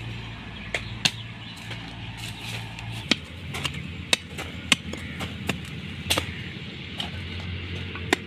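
Hand tools striking: a blade chopping at woody stems and a small spade cutting into soil, about ten sharp strikes at uneven intervals.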